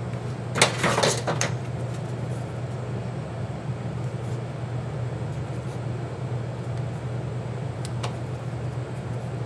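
A steady low hum, with a short clatter of a marker and scissors being handled on a metal workbench about a second in and a single faint click near the end.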